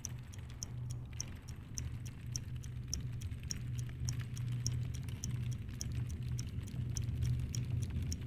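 Computer keyboard keys clicking at an even pace, about three strokes a second, over a low steady electrical hum.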